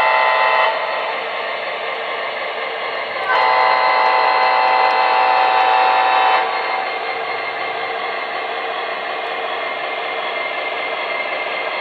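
MTH HO-scale diesel locomotive's onboard sound system: a short horn blast at the start and a long horn blast about three seconds in, lasting some three seconds, over the steady sound of a running diesel engine from its small speaker.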